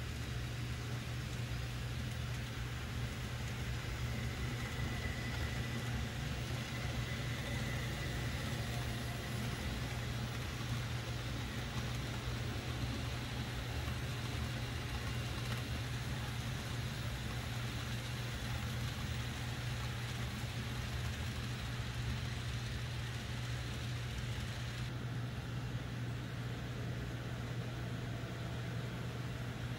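N scale model passenger train running on layout track, its Kato-mechanism E8 locomotives giving a faint high motor whine a few seconds in, over a steady low hum and hiss. The hiss drops abruptly near the end.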